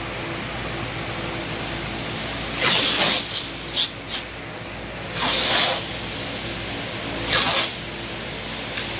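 Grey tape being pulled off the roll and run along the seams of a form: several short rasping pulls, the longest about half a second, the first about two and a half seconds in, over a steady hum.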